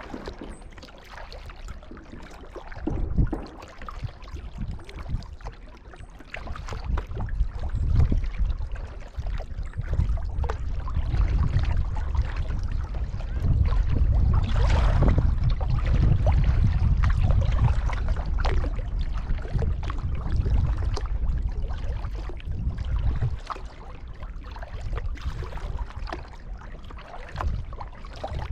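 Water splashing, trickling and dripping around a paddled kayak, over a low rumble. It gets louder about ten seconds in and eases off again after about twelve seconds.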